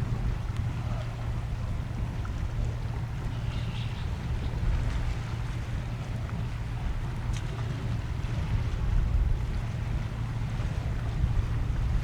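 Low rumble of wind buffeting the microphone, rising and falling in strength.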